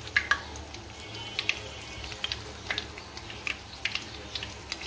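Frozen, besan-battered catla fish chops deep-frying in oil in a wok: a steady sizzle with frequent sharp pops and crackles.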